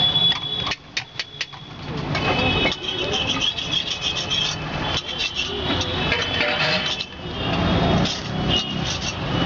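Metal spatula scraping and tapping on a tawa (flat iron griddle) at a street egg-fry stall, with a quick run of about five sharp taps about a second in. Voices and road traffic run underneath.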